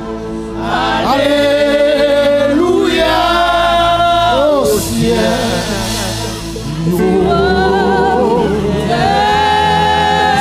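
Gospel worship singing: voices through microphones sing long held notes with vibrato over sustained accompaniment chords, easing off briefly in the middle before swelling again.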